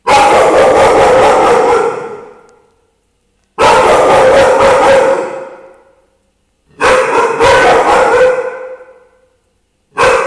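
A dog barking in long, loud bouts of rapid barks, about two seconds each. Three bouts trail off one after another, and a fourth begins near the end.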